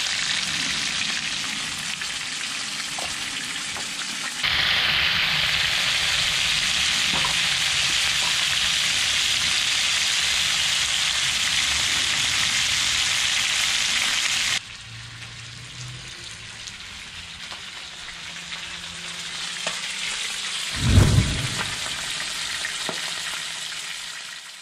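Pieces of rockfish sizzling in oil in a frying pan. The sizzle is loud for about ten seconds in the middle, then drops quieter, and there is a dull thump near the end.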